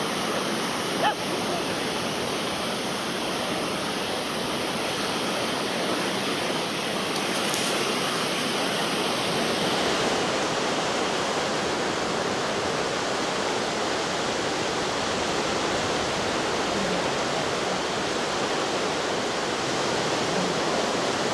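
Small North Sea waves breaking and washing up a sandy beach: a steady rushing surf noise. A brief sharp sound stands out about a second in.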